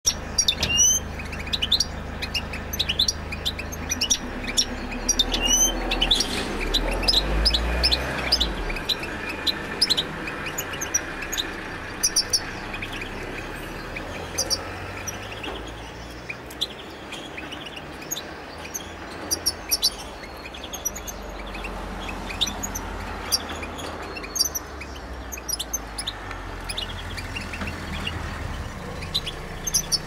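European goldfinch singing: a fast twittering song of short, high chirps and trills that runs on with brief breaks, over a low background rumble.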